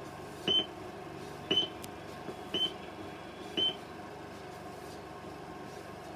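Four short blips about a second apart from a 16mm film countdown leader's soundtrack, one per number, stopping about four seconds in. A steady hiss and hum runs underneath.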